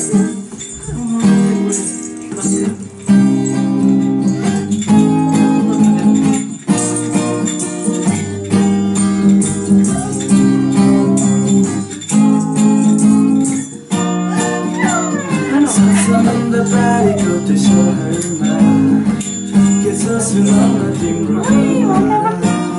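Acoustic guitar strummed in steady, rhythmic chords, with small jingling percussion shaken along. A voice starts singing along about two-thirds of the way through.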